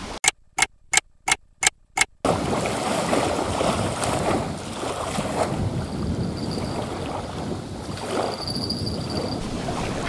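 Six sharp clicks in quick succession over the first two seconds, then small wind-driven waves lapping against the lake shore. Near the end a faint high zing comes from a spinning reel's drag starting to give line to a hooked carp.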